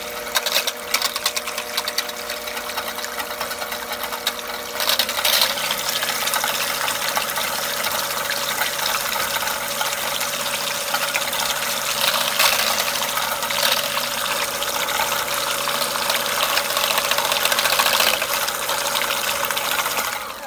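Immersion (stick) blender running steadily in a glass measuring cup, blending a liquid lime-juice, oil and honey dressing. Its sound gets louder about five seconds in and stops at the end.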